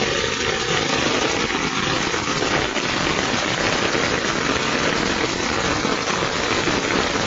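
Heavy rain falling onto standing floodwater: a steady, even hiss.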